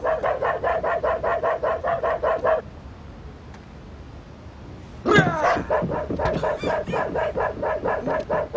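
Car alarm sounding a rapid electronic pulsing tone, about six even yelps a second at one pitch. It stops about two and a half seconds in, then starts again about five seconds in with a fast rising sweep into the same pulsing.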